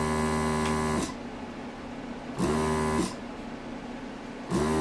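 Brushless vacuum pump of a desoldering station humming. It runs for about a second and cuts off, then starts again twice in short bursts, each rising quickly in pitch as it spins up. The pump runs but draws almost no suction through the desoldering iron; the owner suspects the pump is defective.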